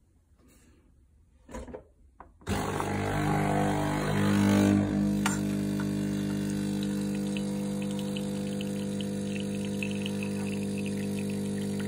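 L'OR Barista capsule coffee machine brewing: after a couple of faint clicks its pump starts suddenly about two and a half seconds in with a steady hum, swelling briefly and then settling. Coffee runs in two thin streams into a mug with a light spatter.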